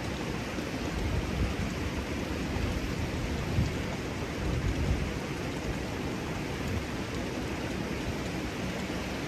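Steady rush of water from a small cascade flowing into the hot-spring pool, with a few low rumbles between about one and five seconds in.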